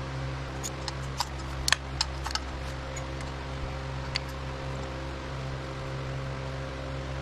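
Sharp metal clicks and clinks of hand tools and bolts being taken out of a motorcycle engine's stator cover: a cluster in the first couple of seconds and one more about four seconds in. A steady mechanical hum runs underneath.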